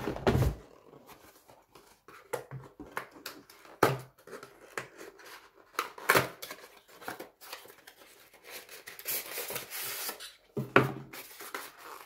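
Packaging being handled: a small cardboard box knocked and opened, then a styrofoam insert holding a light bulb slid out and pulled apart. A thump at the start, scattered clicks and taps, and a longer scraping rustle about nine seconds in.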